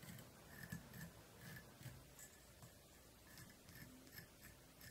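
Faint, repeated scratchy strokes, a couple a second, of a small dubbing brush raking across a fly's black yarn body to rough it up and make it fuzzy.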